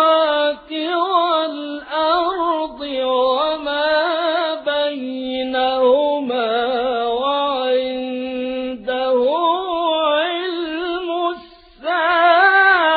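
A man reciting the Qur'an in a slow, melodic chant. He draws out long ornamented notes whose pitch bends up and down, takes short breaths between phrases and pauses briefly near the end before the next phrase.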